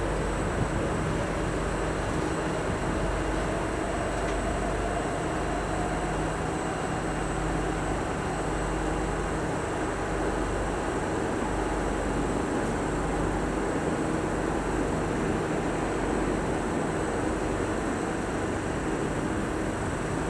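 Steady hum and rumble inside a Singapore MRT train carriage, with a faint whine that rises slowly a few seconds in.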